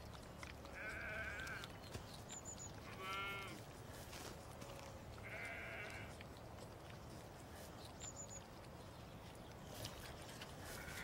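A lamb bleating faintly three times, each call about half a second long; the middle bleat wavers and falls in pitch.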